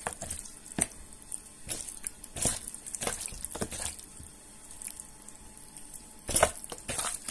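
Wet squelching and squishing of raw chicken pieces kneaded by hand in a thick curd-and-chilli marinade, in irregular bursts: quieter for a couple of seconds past the middle, then a busier run of squelches near the end.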